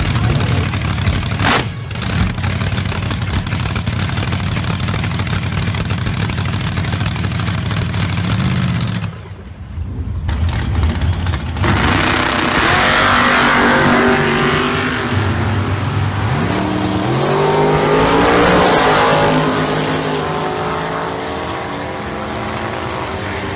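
Drag race car engine: loud steady rumble for several seconds, a brief lull about nine seconds in, then hard acceleration with the pitch climbing, dipping and climbing again as the car launches down the strip, easing off near the end.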